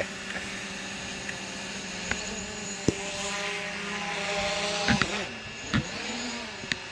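Camera drone's propellers humming steadily as it hovers close by. The pitch shifts in the middle as the motors change speed, with a few short clicks.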